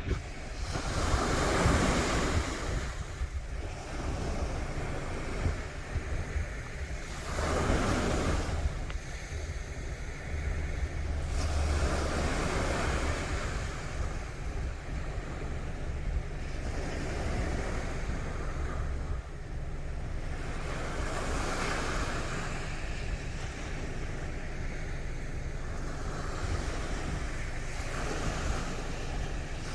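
Sea waves breaking and washing up the shore, a surge of surf every four to five seconds, with wind rumbling on the microphone.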